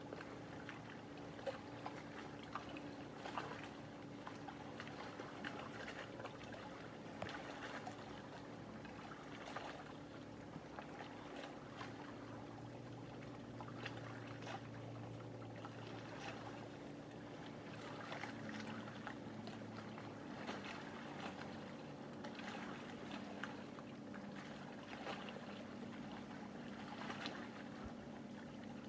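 Small waves lapping at the lake's edge in soft, irregular splashes, over a faint steady low hum.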